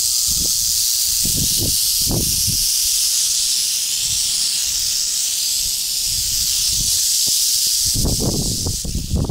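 Prairie rattlesnakes buzzing their rattles in a continuous high, hissing rattle: a defensive warning. Occasional low thumps sit underneath, heavier near the end.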